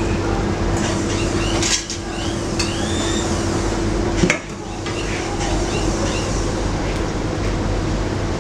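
Kitchen background: a steady hum from kitchen equipment, with a few clinks of metal utensils against a steel pan and a china plate. A sharp click comes about four seconds in, and the hum breaks off with it.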